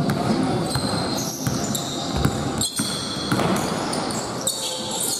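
Basketball game in a gym: the ball bouncing on the court and shoes squeaking on the floor in many short, high squeaks, over players' voices echoing in a large hall.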